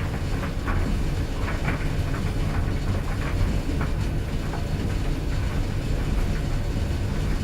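Clothes dryer running: a steady low rumble of the turning drum, with irregular light knocks scattered through it.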